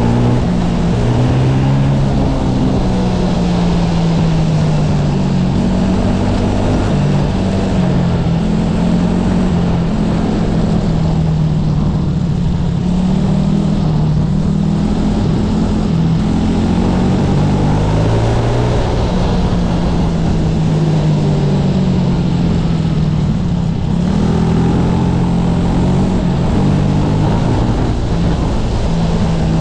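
SA250 racing kart engine running hard through laps, its pitch climbing on the throttle and dropping back again and again as the kart brakes into corners and accelerates out, heard from the driver's seat under a steady rush of wind and road noise.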